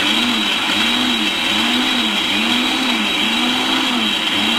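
Electric mixer grinder running at speed, dry-grinding roasted red chillies, urad dal, fenugreek, dry coconut and mustard seeds into a powder. It makes a steady loud whir with a low hum that wavers up and down roughly every three quarters of a second.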